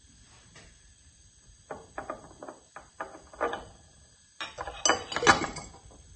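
Light clinks and knocks of a metal deflagrating spoon and a lid against a glass gas-jar cylinder as the oxygen jar is opened and the burning magnesium is lowered in. The clinks come in two runs, the second louder, with the loudest ring about five seconds in.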